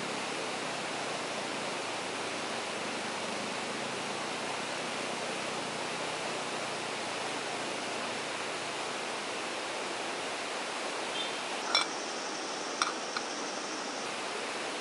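Steady, even hiss. Near the end come a few light clinks of a metal spoon against a small camp cooking pot.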